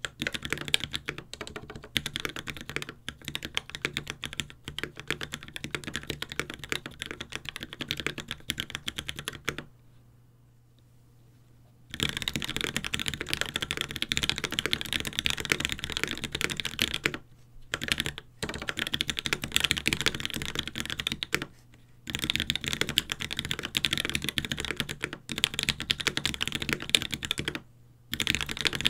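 Fast touch-typing on a Space65 custom mechanical keyboard with lubed Tealios V2 linear switches, a carbon fiber plate and GMK ABS keycaps: a rapid, dense run of keystrokes. About ten seconds in the typing stops for about two seconds, then comes back in several runs split by short breaks.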